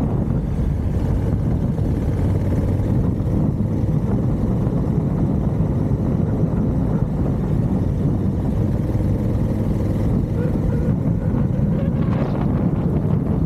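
Motorcycle running at a steady pace on the road: a loud, even, low rumble of engine and riding noise.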